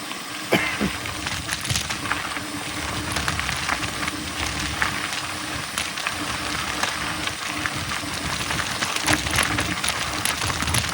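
Mountain bike rolling fast downhill on a dirt trail without pedalling: a steady rushing noise from the tyres and the ride, broken by frequent rattles and clicks from the bike over bumps.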